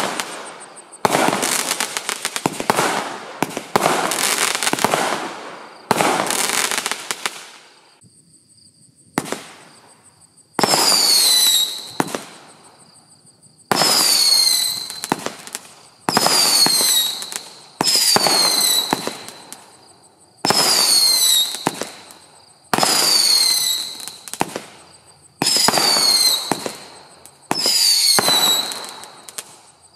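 Spook Fireworks 'Flaming Fireballs' barrage cake firing. Dense crackling volleys for the first several seconds give way to single shots about every two and a half seconds. Each shot is a loud bang followed by a falling high whistle that fades out.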